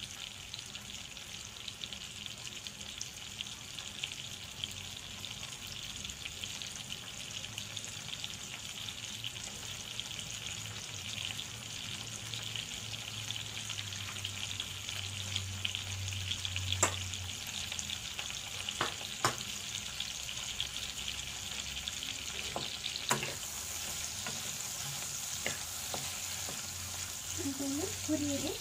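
Tomato, onion, garlic and ginger frying in a pan with a steady sizzle. A few sharp utensil knocks come in the second half, and a wooden spatula stirs the pan near the end.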